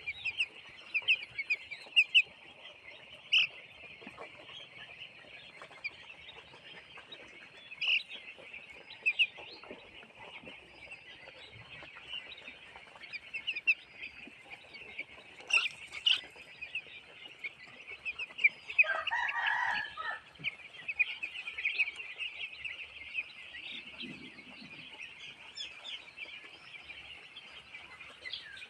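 A crowd of broiler chickens, mostly young birds, peeping continuously in many overlapping short chirps. About two-thirds of the way through, one louder, lower call lasts a second or so.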